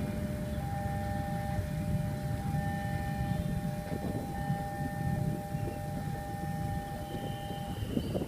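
Railway level-crossing warning alarm sounding a steady electronic tone over the low rumble of traffic waiting at the crossing; the alarm cuts off near the end as the train has cleared.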